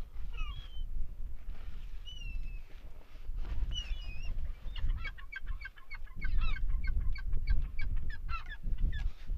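Gulls calling: a few separate squawks, then from about five seconds in a quick run of short calls, roughly five a second, with a low rumble underneath.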